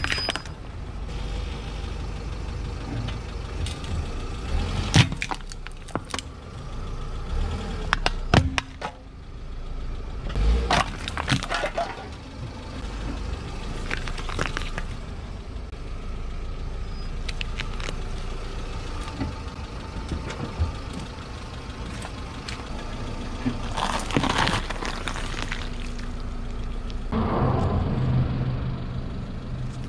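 A car rolling slowly over objects on concrete, its engine a low steady rumble, with a series of sharp cracks and crunches as things break under the tyre.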